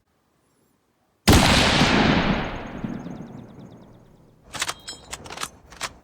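A single loud rifle shot with a long, slowly fading echo, followed near the end by a quick run of five or six sharp metallic clicks.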